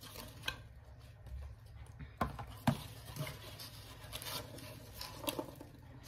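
Packaging handled while items are taken out of a subscription beauty box: soft rustling with a few scattered light taps and clicks.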